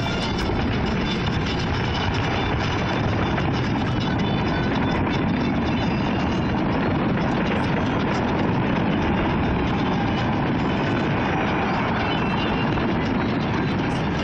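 Dense fireworks barrage heard from a distance, its many bangs and crackles blending into one steady rumble.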